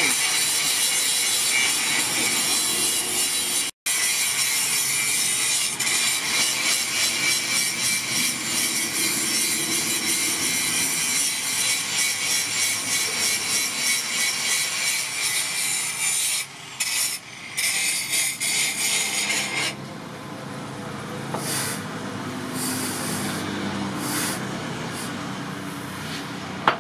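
Hot forged steel, a tool made from an old file, hissing and sizzling as it is quenched in a water trough. The hiss is steady with a fast flutter, and about twenty seconds in it falls off into weaker, broken sputters as the steel cools.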